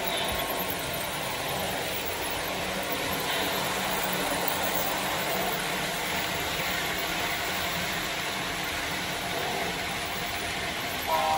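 Model freight train running on the layout track, a steady rolling rumble. Just before the end, a model locomotive's horn sounds briefly, several tones together.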